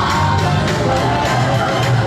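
Upbeat recorded song with singing, played loud over a dark ride's sound system.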